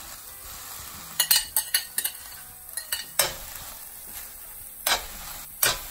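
A metal spoon stirring sliced mushrooms into onions and bell peppers sautéing in olive oil in a pan: several sharp clinks and scrapes of the spoon against the pan over a faint steady sizzle.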